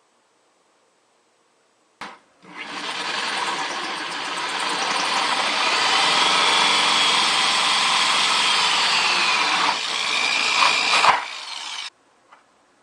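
Power drill cutting a hole through a plastic 5-gallon bucket, running steadily for about nine seconds and stopping suddenly.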